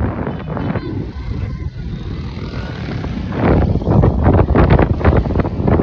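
Street traffic of motorcycles and auto-rickshaws, with wind buffeting the microphone. It grows louder about three and a half seconds in.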